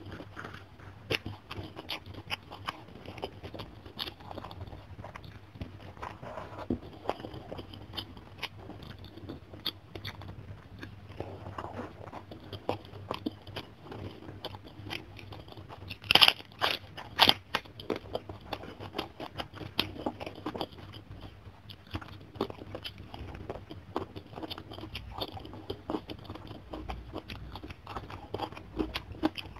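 Close-up chewing and crunching of raw white cabbage leaves and other lalapan, with many small wet mouth clicks. A few loud, sharp crunches come in a cluster about halfway through.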